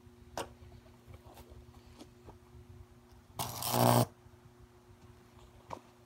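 Microwave oven transformer humming steadily, with scattered faint clicks. A bit over three seconds in, its high-voltage lead arcs into a circuit board with a loud buzzing crackle lasting about half a second.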